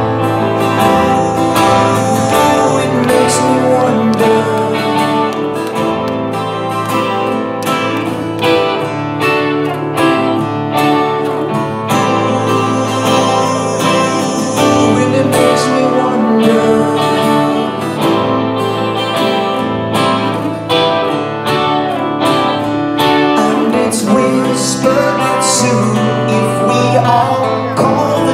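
Live rock band playing a song in a concert hall: strummed acoustic guitar and a double-neck electric guitar carrying steady chords, with a male singer's voice over them at times.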